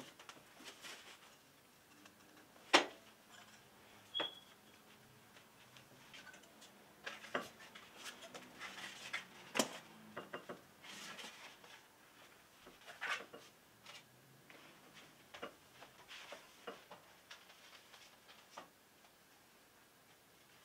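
Books, plant pots and other items being lifted off and set down on a shelf unit with glass shelves and a metal frame: scattered knocks and clinks with light handling and rustling between. The loudest knock comes about three seconds in, and a short ringing clink follows about a second later.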